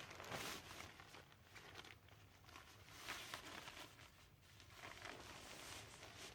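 Faint rustling and crinkling that swells up three or four times, the sound of someone moving about and handling material.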